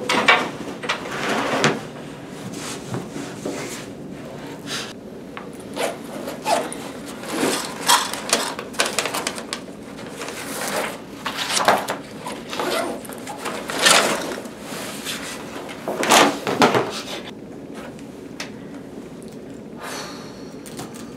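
Someone settling at a table and rummaging in a cloth backpack: a string of irregular rustles, scrapes and knocks as things are handled and set down.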